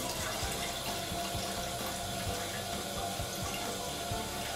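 Cold water running steadily from a kitchen tap into a cooking pot, turned on abruptly at the start.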